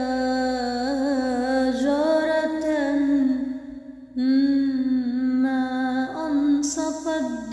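A solo voice singing unaccompanied, drawing out long held notes with small ornamental turns and no clear words. There is a brief breath break about three and a half seconds in, then the voice picks up the line again.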